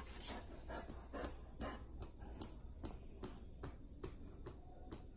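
Dog's tail thumping on a hardwood floor as it wags while the dog lies on its side, a regular beat of about two to three knocks a second.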